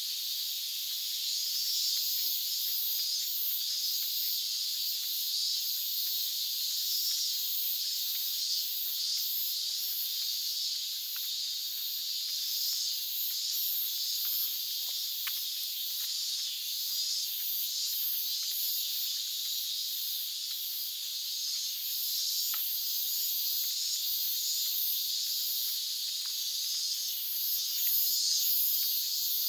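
Summer cicadas in chorus: a dense, steady, high-pitched buzzing hiss with a pulsing shimmer on top.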